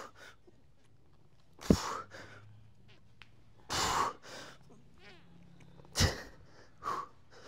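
A man's sharp, forceful breaths, about one every two seconds, as he strains through reps of a heavy dumbbell press, with one longer breath near the middle.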